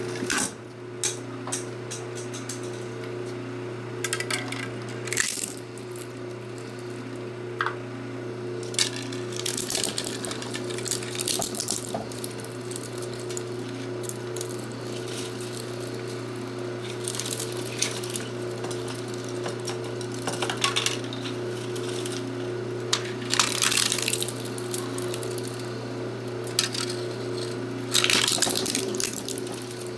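Small twin-shaft shredder, driven by a single-phase induction motor through a roller chain, humming steadily while its cutter discs crack and crunch 3D-printed plastic parts. The crushing comes in repeated bursts of sharp cracks and clattering fragments as each part is caught and torn apart.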